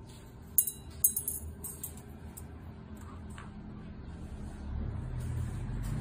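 A few sharp metallic clinks with a brief bright ring in the first two seconds as Yamataha flame rods, threaded metal fittings on ceramic bodies with long thin rods, are handled and laid down on a stone surface. Then a low vehicle rumble builds near the end.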